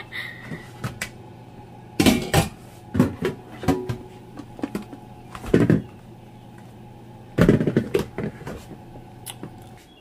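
Kitchenware handled at a sink: a plastic colander of boiled potatoes, a stainless steel pot and plastic bowls. It comes as four short bouts of knocking and clattering. A steady low hum runs underneath and stops near the end.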